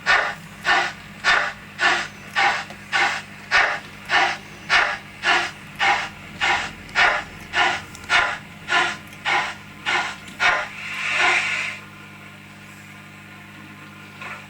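Model steam locomotive sound decoder playing the exhaust chuffs of an LNER A4 through the model's small speaker, nearly two even beats a second. About eleven seconds in, the chuffs give way to a longer steam hiss that stops, leaving a faint steady hum.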